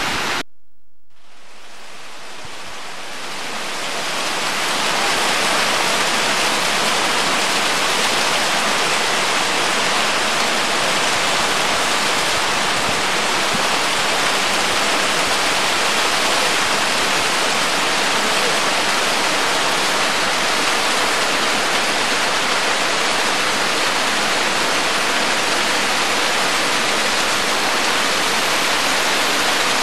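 Steady rush of the fast-flowing Ganga (Bhagirathi) river, fading in over the first few seconds.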